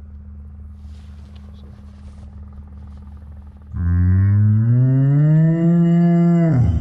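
A cow's moo sound effect: one long, loud moo that comes in about four seconds in, rises slowly in pitch, holds, then drops off sharply at the end. A low steady hum sits under the first four seconds.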